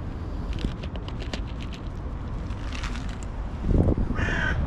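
A crow caws once near the end, a harsh call. Under it runs a steady low rumble, with a run of faint clicks in the first couple of seconds.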